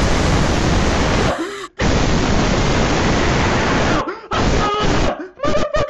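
A man's scream-laugh blown out into harsh, static-like distortion, very loud. It comes in two stretches of about two seconds each with a short break between, then breaks into shorter choppy bursts near the end.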